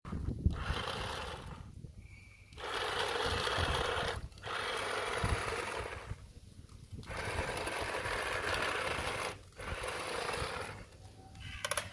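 Small electric drive motor of a 1:14 scale plastic RC toy forklift whirring in five bursts of one to two seconds with short pauses as it drives and turns on rough concrete, followed by a few quick clicks near the end.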